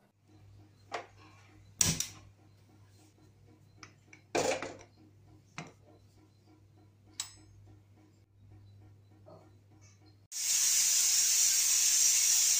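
Butterfly pressure cooker letting off steam: a loud, steady hiss lasting about two seconds near the end, cutting off suddenly. Before it, a few scattered clinks and knocks of the metal lid being closed and locked, over a faint low hum.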